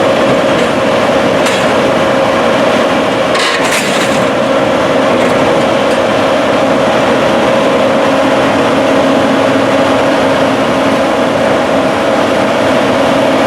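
John Deere S690 combine running steadily under a loud, even machine drone with a held tone. A brief high rattle comes about three and a half seconds in, and a lower hum joins about eight seconds in.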